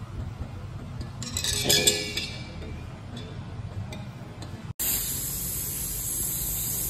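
Refrigerator compressor being handled and set down while its oil drains into a plastic cup: a short metallic clinking about one to two seconds in. After a sudden break about two-thirds through, a steady high hiss takes over.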